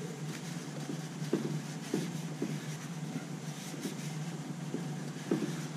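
Cloth wiping and scrubbing the inside of a Vespa GTS's front mudguard: faint, irregular rubbing strokes over a steady low background hum.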